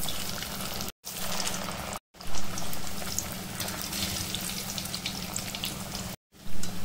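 Beetroot cutlets deep-frying in hot oil: a steady sizzle full of fine crackling pops. It is cut off by three brief gaps of silence, with louder flare-ups about two seconds in and near the end.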